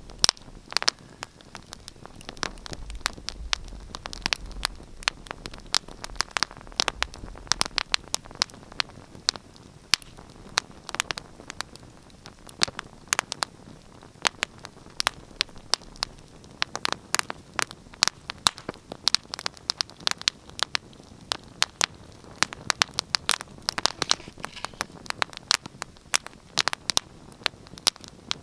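Wood fire crackling: irregular sharp pops and snaps, several a second, over a soft steady hiss, with a faint low rumble for a few seconds near the start.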